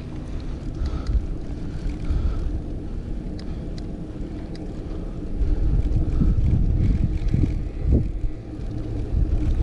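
Wind buffeting the microphone and a mountain bike's tyres rolling and rattling over a gravel fire road downhill, getting louder a little past halfway as the bike picks up speed.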